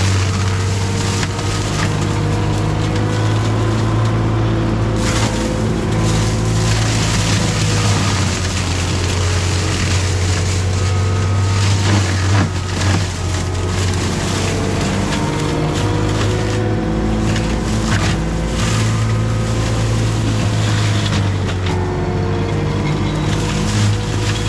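CAT 259D3 skid steer's diesel engine running hard while its Gyrotrac 400 HL forestry mulcher head grinds through brush and wood, the engine note wavering with the load. Occasional sharp cracks of wood breaking come through the steady din.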